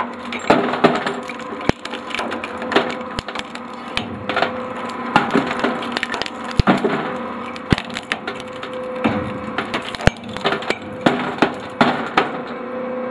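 Hard-drive shredder's rotating cutter blades chewing through a standard computer hard drive: a steady motor hum under a dense, irregular run of sharp cracks and snaps of metal and casing breaking, thinning out near the end.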